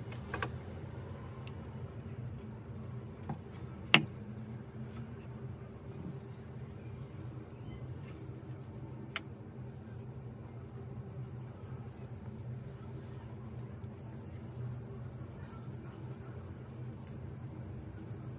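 Cloth faintly rubbing a finish onto a wooden knife handle, over a steady low hum, with a few sharp clicks of the knife being handled; the loudest click comes about four seconds in.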